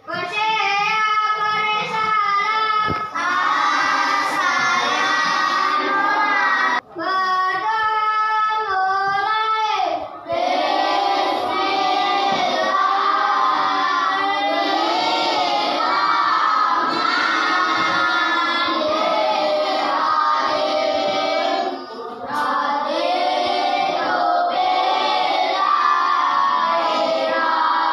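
A group of children singing a song together, with brief pauses between phrases about 7 and 10 seconds in.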